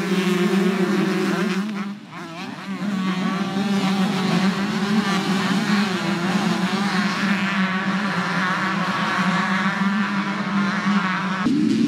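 Several two-stroke dirt bike engines revving hard and shifting as they race. The engines make a high, rising and falling whine over a steady low drone, with a short drop in level about two seconds in.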